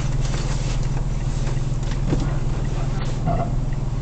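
Car heard from inside the cabin while driving: a steady low drone of engine and road noise.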